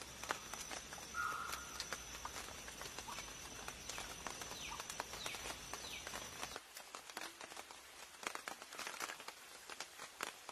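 Rain dripping and pattering in a forest, many small separate drops ticking. A steady high thin tone and a low rumble run under it and drop out abruptly about two-thirds of the way in, and a few short chirps sound in the first half.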